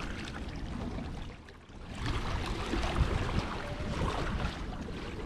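Wind gusting on the microphone over moving water, a steady rushing noise that eases briefly about one and a half seconds in.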